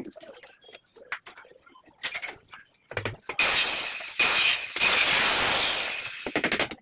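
A handheld power drill boring into the plywood door frame. It starts about three and a half seconds in with two short bursts, then runs steadily until shortly before the end. A few light clicks and knocks of handling come before and after it.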